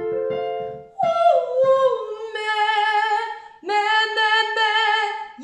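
A woman singing a belted high chest-voice phrase, sliding down and then holding two long notes with vibrato, after a brief chord of steady reference notes about a second before she comes in. It demonstrates a balanced belt tone: powerful and resonant rather than strained.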